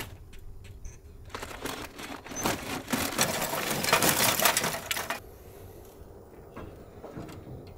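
Charcoal briquettes poured from a bag into a grill: a dense clattering rattle for about four seconds, followed by a few faint clicks and handling sounds.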